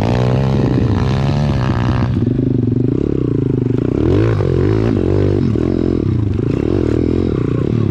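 Pit bike's single-cylinder four-stroke engine running while riding off-road. The revs rise and fall with the throttle, with some rattle from the bike over the rough trail.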